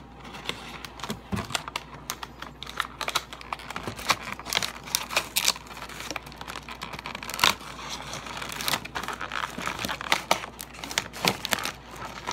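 Toy gun's retail packaging being opened by hand: irregular crinkling and crackling with occasional tearing, one sharper snap about seven seconds in.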